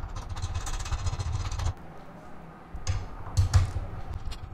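Small metallic clicks and rattles as a bolt is fitted by hand through the holes of a metal TV wall-mount plate on the back of a television, over low rumbling handling noise. A few sharper clicks and knocks come about three seconds in.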